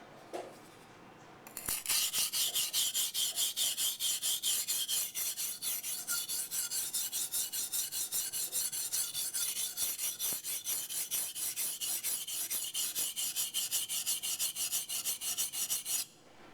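Becker BK9 knife blade stroked back and forth on a coarse 180 grit waterstone, shaping and thinning the bevel: rapid, even rasping strokes, about four a second, starting about two seconds in and stopping abruptly just before the end.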